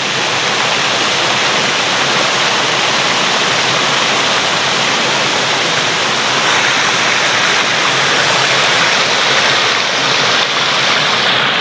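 Small waterfall and the rocky stream below it rushing steadily over stone, a constant hiss of moving water.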